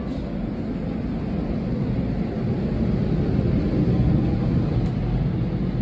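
Steady low rumble of the Rokumon sightseeing train running, heard from inside a passenger car; it swells a little in the middle.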